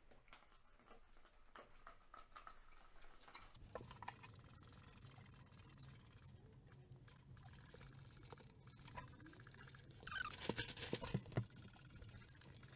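Trigger spray bottle squirting cleaner onto a tiled bathtub wall, a run of short faint sprays, with louder rustling and clicks near the end.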